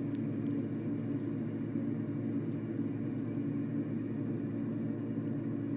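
Steady low mechanical hum and rumble of room background, level throughout with no rise or fall.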